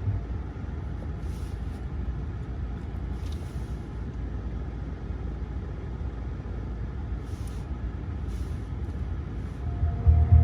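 Steady low rumble inside a car cabin, with a few faint short high hisses. Near the end, music with heavy bass starts over the car's speakers.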